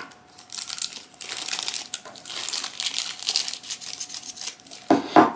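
Thin clear plastic wrapping crinkling as it is pulled off the parts of a small plastic Nendoroid figure, in quick crackly rustles, with a short louder noise near the end.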